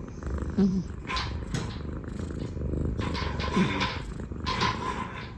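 Cat purring steadily.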